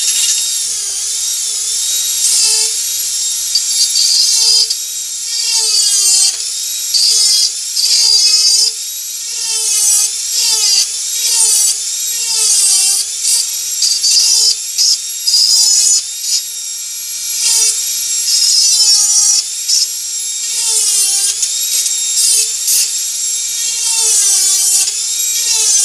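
Dremel 4000 rotary tool driving a burr through a flex shaft, carving wood: a high whine that dips in pitch again and again as the burr bites into the wood and recovers as it lifts off, the loudness rising and falling with each touch.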